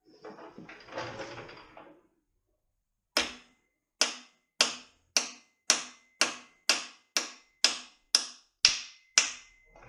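A hammer tapping a press-fit oil galley plug into the front of a Mazda Miata 1.8 engine block: about a dozen sharp metallic taps, roughly two a second, with a faint ring between them. Before the taps, a couple of seconds of shuffling and handling noise as the tool is picked up.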